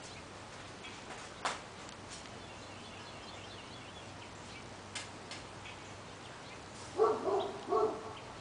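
Quiet room with a few faint taps, then a dog barking twice about seven seconds in.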